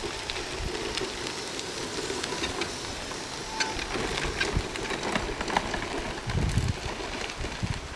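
Permobil F3 power wheelchair rolling over a dirt-and-gravel path: its tyres crunch steadily with many small clicks and ticks of grit.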